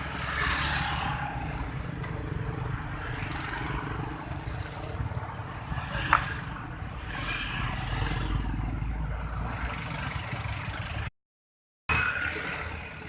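Road traffic: vehicles passing with engine rumble and tyre noise in a steady swell and fade, and a short sharp sound about six seconds in. The sound cuts out briefly near the end.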